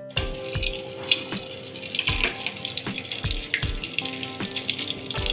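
Hot cooking oil sizzling and spitting in an aluminium pot as it comes up to frying heat, with a background music track over it.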